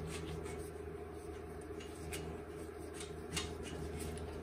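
Faint rustling and light ticks of a string and wiring harness being drawn through an electric bike's frame tube, with a small click a little after three seconds, over a steady low hum.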